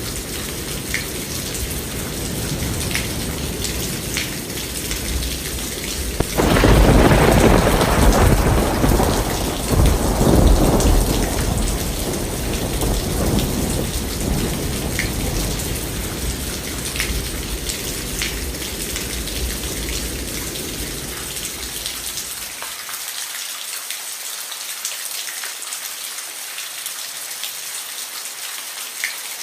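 Steady rainfall with scattered drop ticks; about six seconds in, a thunderclap breaks into a deep rumble that rolls on for several seconds and slowly dies away over roughly fifteen seconds.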